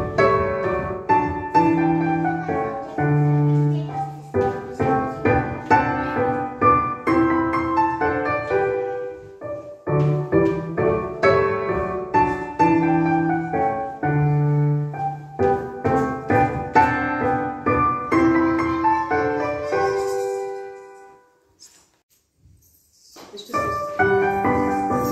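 Lively piano music for a dance, its tune repeating, fading out about 20 seconds in. After a short pause, another piece starts near the end with bright jingling bells.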